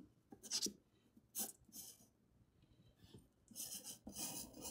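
Faint scratching of a graphite pencil on drawing paper: a few short soft sounds at first, then steadier scratching from about three and a half seconds in.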